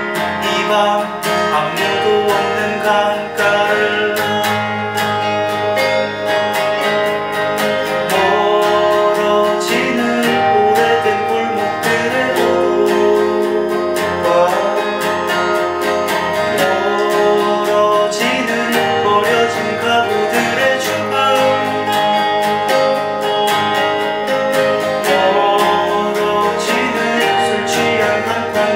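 Live song on a strummed steel-string acoustic guitar with a clean electric guitar picking along, and a male voice singing over them.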